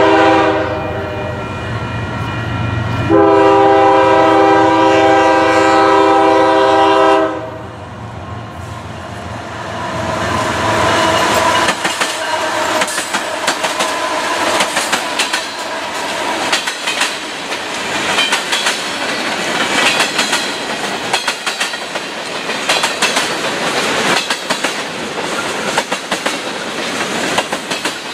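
Union Pacific freight locomotive's five-chime Nathan K5HL air horn: one blast ending about a second in, then a longer blast of about four seconds. The locomotive then passes, followed by the steady clickety-clack of covered hopper car wheels over the rail joints.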